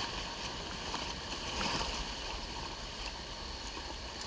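Steady rushing of river water around a raft, with a few faint knocks.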